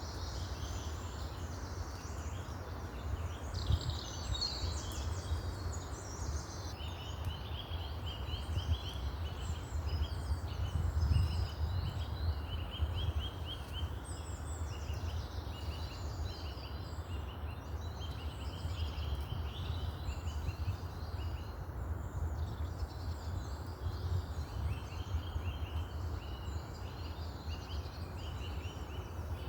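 Woodland birdsong: several birds singing at once, one of them repeating a short phrase of quick high notes again and again, over a steady low rumble.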